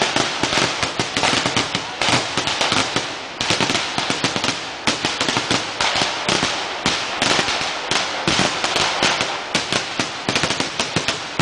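Barrage of firecrackers going off at ground level in rapid succession: many sharp bangs a second running together, with a few short lulls.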